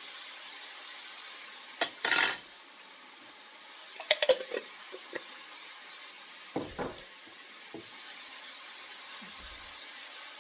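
A spoon clinking and scraping against a pot: a sharp clink and a short scrape about two seconds in, a cluster of clinks around four seconds, and duller knocks near seven seconds. Under them, a steady sizzle of seasoned vegetables frying in the pot.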